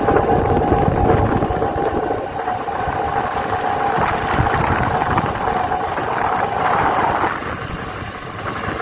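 Industrial gear reducer (gearbox) running with an abnormal noise: a steady whine over a rough mechanical rumble. The whine drops out about seven seconds in.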